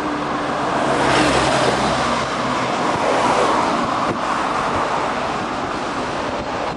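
A motor vehicle passing close by, its engine hum fading after the first couple of seconds, under a steady rush of wind on the microphone.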